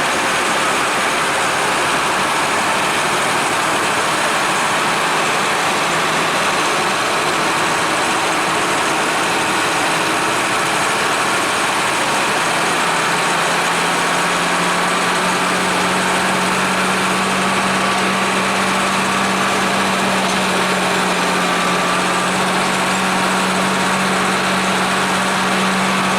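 Hino AK-3 HR bus's diesel engine running, mixed with steady road and wind noise. A steady low hum comes in about halfway through and holds.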